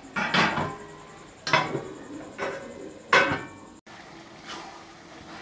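A spatula scraping and knocking against a metal kadai as chopped onion, tomato and capsicum are stirred. There are about four sharp strokes in the first three seconds, then softer stirring.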